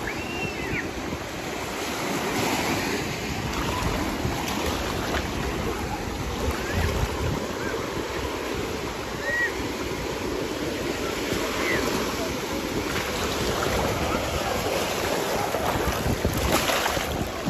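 Small sea waves washing in over the sand at the water's edge, with a louder wash near the end. Wind is blowing on the microphone.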